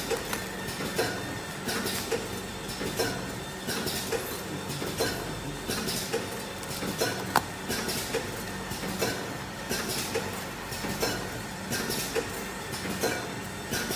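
Automatic glove cartoning machine running, a rhythmic mechanical clatter with a stroke about once a second and lighter clicks between, over a steady low hum.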